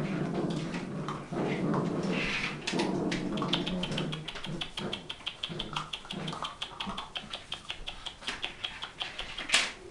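Puppies playing and tussling on a tile floor: low scuffling and grumbling noises, then a long run of quick clicks from their claws on the tiles, with one sharper knock near the end.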